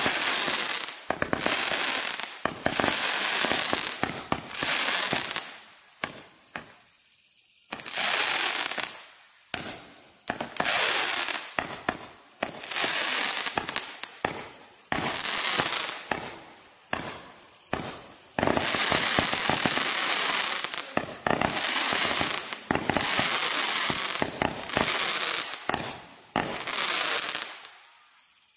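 Spook Fireworks Ballistic barrage cake firing shot after shot: over a dozen loud bursts of hiss and crackle, each lasting about a second, with short gaps between them. The firing stops about a second before the end.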